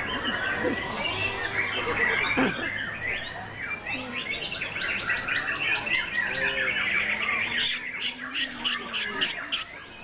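Caged white-rumped shamas (murai batu) and other songbirds singing at once: a dense, continuous stream of rapid chirps, trills and whistles.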